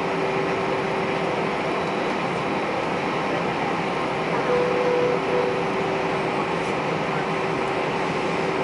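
Steady cabin noise of an Airbus A320 taxiing, its engines at idle, with a thin steady whine running through it. A brief higher tone sounds about halfway through.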